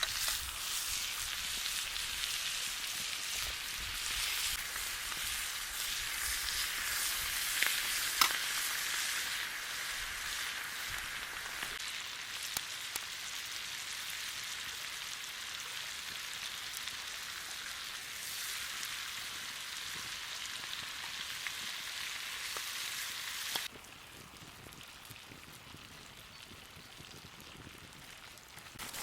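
Tomahawk steak sizzling in butter in a pan over a campfire: a steady hiss with scattered crackles and pops. The sizzle drops abruptly to a quieter level about three-quarters of the way through.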